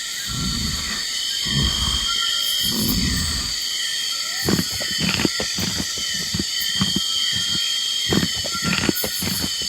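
A large animal's deep, repeated grunts, about one a second, followed by a run of sharp clicks and knocks, over a steady high-pitched chirring background.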